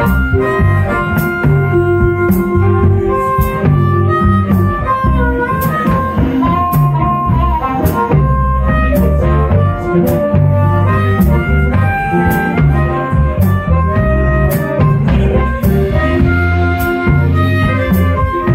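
Band playing live: a harmonica solo played cupped against a vocal microphone, over electric bass and drums with regular cymbal strikes.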